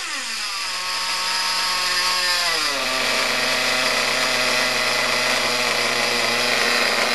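An RC model's motor running hard through a three-speed gearbox: a steady, high mechanical whine whose pitch falls in two steps, just at the start and again about two and a half seconds in, as the gearbox shifts up.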